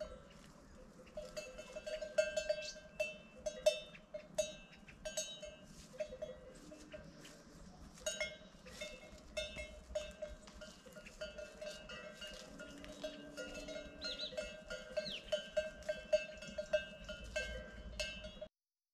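Bell hung on a cow's neck clanking irregularly, several knocks a second, as the cow moves about.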